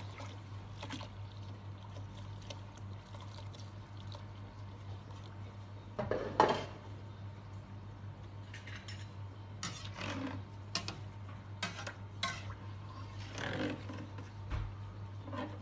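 Stock poured from a pot over rice in a large enamelled cooking pot, then a metal fork and spoon clinking and scraping against the pot as the rice is pushed down into the liquid. There is a louder clatter about six seconds in.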